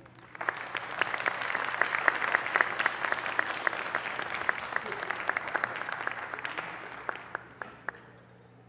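Audience applauding, starting about half a second in, with a few last scattered claps as it dies away near the end.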